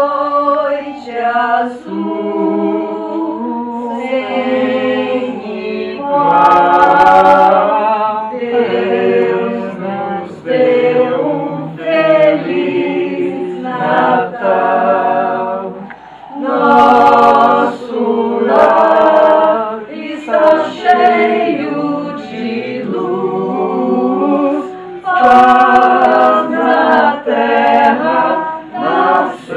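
A small group of men and women singing together unaccompanied, in sung phrases with short pauses between them.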